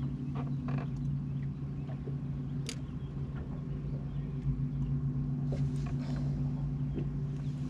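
Electric trolling motor humming steadily at an even speed, holding the bass boat in position, with a few light clicks and taps over it.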